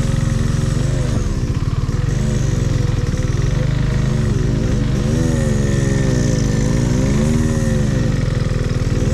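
KTM 390 Adventure's single-cylinder engine running under the rider, its pitch rising and falling again and again as the throttle is opened and closed on a rough trail.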